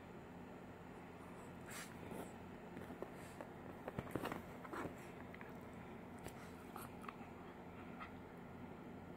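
Mostly quiet room tone, with faint rustling and a cluster of soft clicks about two to five seconds in, from close contact with a curly-coated dog's fur.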